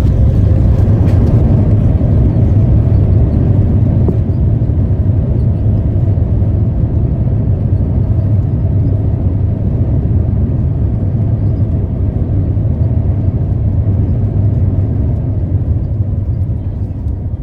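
Steady low rumble of cabin noise inside an Airbus A350-900 airliner on its landing roll, slowly easing off as it slows.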